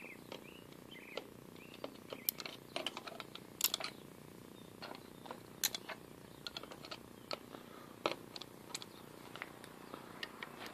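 Scattered, irregular light clicks and taps of hand-oiling the oil points on a 1947 Wards Logan lathe.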